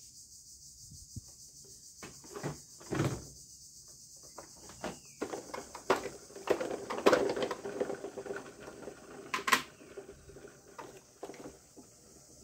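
Large hard-plastic toy jeep being handled and turned over on a tabletop among plastic toy guns: irregular knocks, clatters and scrapes of plastic, starting about two seconds in, over a steady faint hiss.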